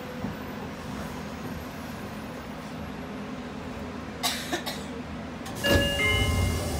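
A Nagoya Municipal Subway 5050-series car standing at a station, heard from inside: a steady low hum from the car's equipment, a few sharp clicks about four seconds in. Near the end comes a thump as the doors work, along with an electronic door chime of several stepped tones.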